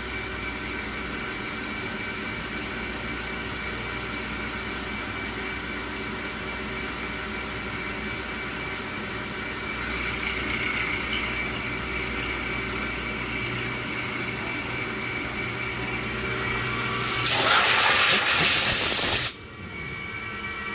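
CNC machining centre running steadily, its carbide end mill milling bolt holes in a steel crown wheel, with a steady whine of several tones over a hiss. About 17 seconds in, a loud hiss lasts about two seconds and cuts off suddenly.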